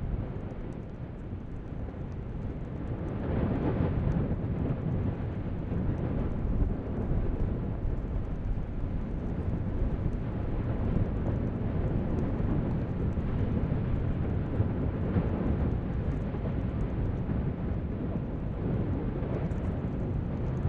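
Deep, continuous rumble of an erupting volcanic vent fountaining lava, swelling louder about three seconds in and then holding steady.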